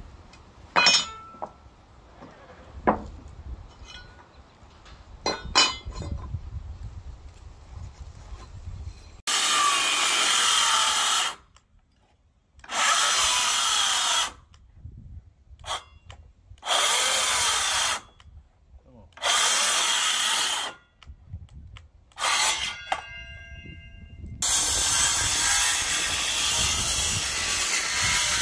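A few sharp knocks of lumber being handled, then a power saw cutting wooden boards in four bursts of about two seconds each, and a longer steady cut starting near the end.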